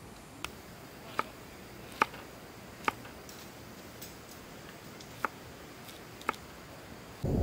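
Six short, sharp clicks at irregular intervals of roughly a second, the loudest about two seconds in, over a faint quiet background.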